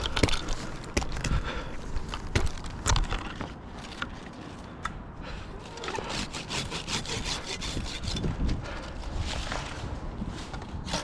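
Hand pruning saw cutting through a tree branch with quick back-and-forth strokes, preceded by sharp knocks and cracks of wood.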